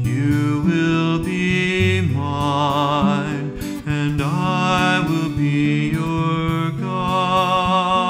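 A man singing a slow song with a wavering vibrato on held notes, accompanying himself on an acoustic guitar.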